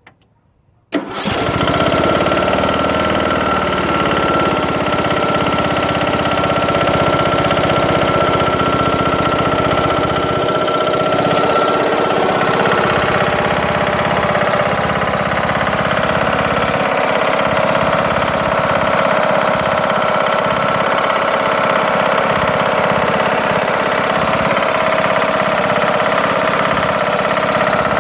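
Briggs & Stratton engine of a Craftsman LT2000 riding lawn tractor comes in abruptly about a second in and then runs steadily. It has a loud knocking noise that the owner thinks may be bad pistons or something hitting inside the engine.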